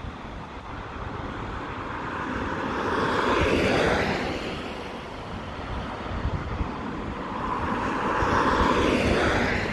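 Two road vehicles passing one after the other, each swelling up and fading away, with wind gusting on the microphone.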